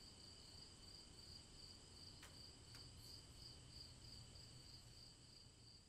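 Near silence: a faint, steady high-pitched whine made of a few held tones, one of them pulsing slightly, with two faint clicks about half a second apart in the middle.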